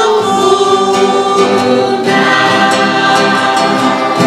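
A children's song sung by a group of voices with musical backing, drawing out long held notes on the words 'food' and 'now', with a change of chord about two seconds in.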